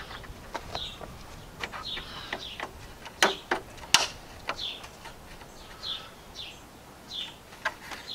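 A small bird chirping over and over in short falling notes. A few sharp clicks and taps come about three to four seconds in, from a screwdriver working the plastic push clips on a truck grille.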